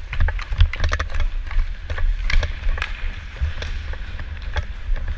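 Hockey skate blades scraping and cutting across the ice, with quick sharp clicks of the stick handling the puck, over a heavy low rumble of wind and movement on a body-worn camera.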